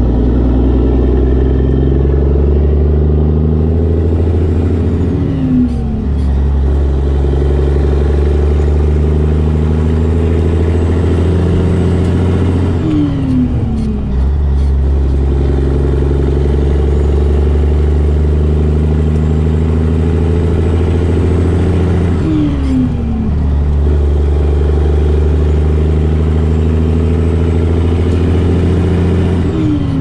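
Cabover Peterbilt 362 semi truck's diesel engine pulling a heavy load, its steady drone broken four times by a quick fall in revs at each gear change, about every seven to nine seconds.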